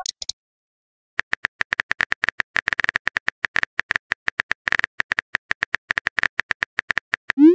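Texting-app keyboard sound effect: a rapid run of short clicks, several a second, as a message is typed letter by letter. It ends in a short rising swoosh as the message is sent.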